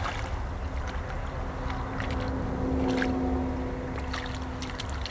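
Engine hum over a steady low rumble. It swells around the middle and eases off near the end, with a few faint clicks.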